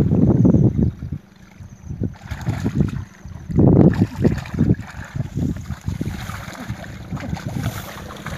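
Wind buffeting the microphone in heavy gusts, strongest in the first second and again around four seconds in, with splashing and sloshing of muddy water as hands grope through a shallow ditch.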